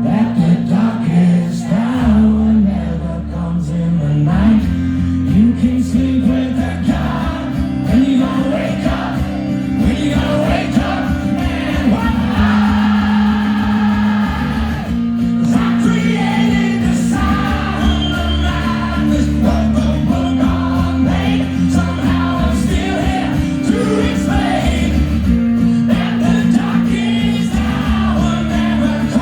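Live acoustic rock music: acoustic guitar accompanying a male lead vocal, with long held sung notes partway through.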